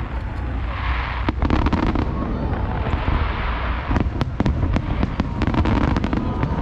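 Aerial fireworks display: shells bursting over a constant deep rumble, with one sharp bang just over a second in and a dense run of rapid crackling bangs from about four seconds in.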